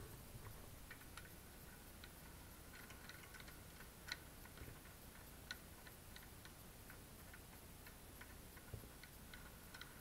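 Faint, irregular metallic clicks and ticks of a screwdriver working a screw in a door's mortise lock faceplate. The sharpest clicks come about four and five and a half seconds in.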